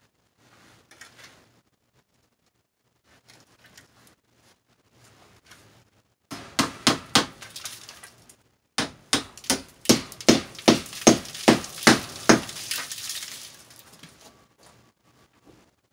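A hammer striking to fasten expanded metal lath to a concrete basement wall: a few blows about six seconds in, then a quicker series of about a dozen sharp strikes, roughly three or four a second.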